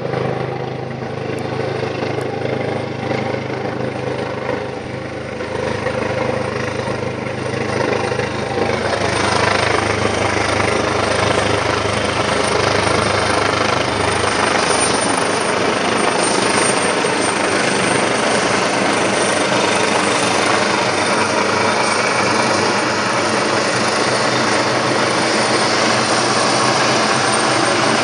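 Military helicopter flying low overhead on its approach to land: steady rotor and turbine noise that grows louder about eight seconds in as it comes closer, then holds steady.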